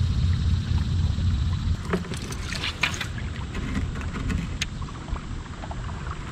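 Fishing kayak on the move on the river: a steady low rumble, with a cluster of sharp clicks and splashes about two to three seconds in and a single click a little later.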